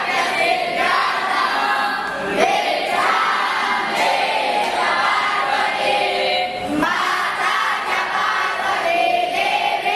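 A group of boys' voices singing together in unison, with pitch shifts every few seconds.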